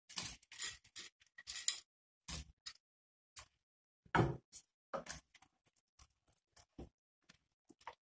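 Pakoras dropped by hand into an aluminium pot of kadhi, heard as a string of short, irregular plops and knocks, the loudest about four seconds in. Lighter ticks follow as the pot is stirred with a wooden spoon near the end.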